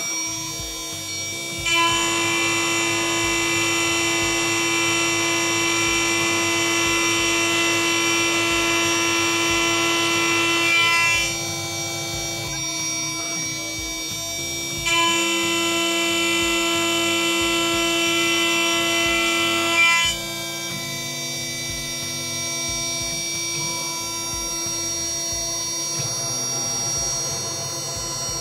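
A Chinese 6040 CNC router's spindle milling slots into an aluminium block with an end mill. There are two louder cutting passes, from about two to eleven seconds in and from about fifteen to twenty seconds in, with the spindle running quieter between and after them. The cut runs with almost no vibration, the spindle now held by a new, stiffer clamp.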